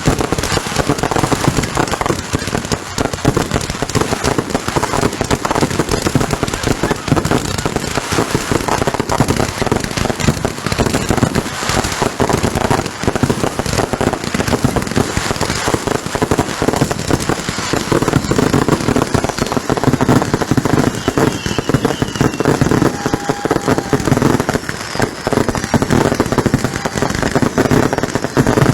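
Consumer fireworks going off in a continuous rapid barrage of bangs and crackling, with no pause.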